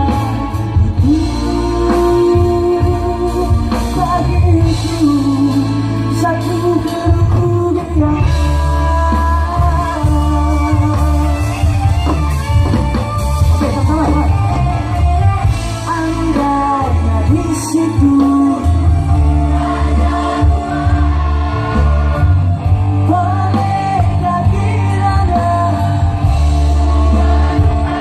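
A live rock band with a male lead singer: sung vocals over electric guitar and heavy bass, played loud through the stage sound system.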